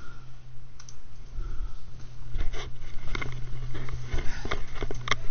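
Footsteps and kit handling of a player moving over a pine-forest floor: irregular clicks and crunches that grow busier after about two seconds, over a steady low hum.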